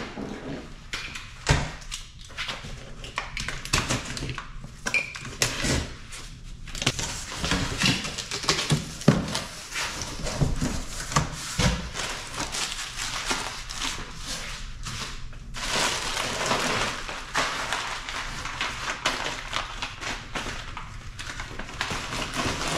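Cardboard shipping box being opened and unpacked by hand: scattered knocks and thunks of the box and flaps, then long stretches of rustling and crinkling as the plastic wrapping inside is handled, heaviest after about seven seconds and again near the end.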